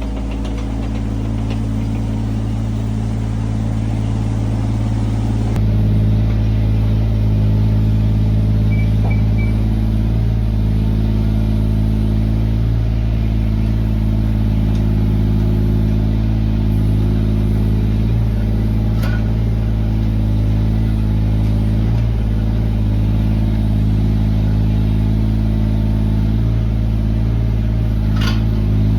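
Kobelco SK17SR mini excavator's diesel engine running steadily under work, getting a little louder about five and a half seconds in. There are a couple of light knocks near the end.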